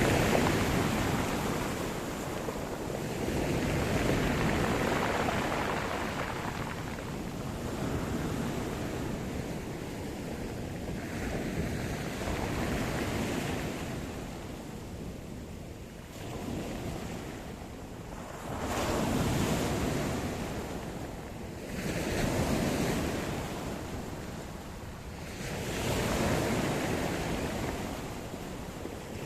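Sea surf: waves breaking and washing in, the rush of water swelling and fading every few seconds.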